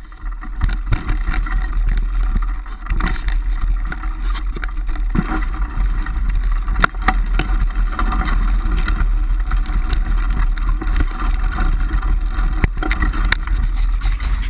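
Wind buffeting the microphone of a camera on a mountain bike riding a rough dirt trail, with a steady deep rumble and frequent rattles and knocks from the bike over bumps, the sharpest about seven seconds in.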